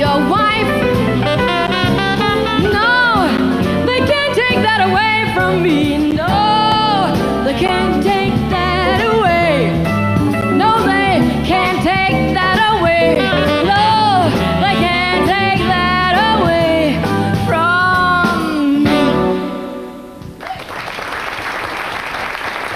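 Live jazz quintet with a female singer singing wordless, gliding lines over saxophone and rhythm section; the band finishes the tune about 19 seconds in, and audience applause follows.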